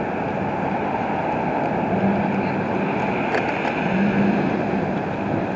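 Steady mechanical rumble with a low engine drone that swells twice, about two and four seconds in.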